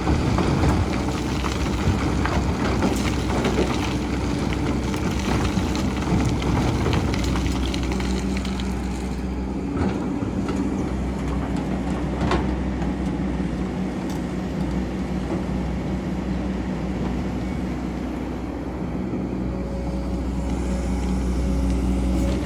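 Excavator diesel engine running steadily, with scattered knocks and scrapes from the bucket working in sand.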